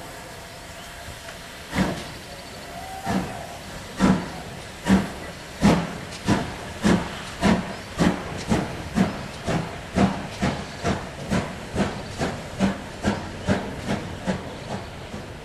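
GWR 5101 Class 2-6-2T steam locomotive No. 4160 pulling away: a steady steam hiss, then exhaust chuffs from the chimney starting about two seconds in, slow and loud at first and quickening steadily to about two a second.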